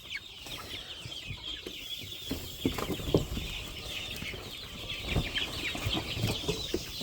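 A flock of chickens calling, a dense chatter of many short high peeps and chirps overlapping with clucking, and a few low thumps.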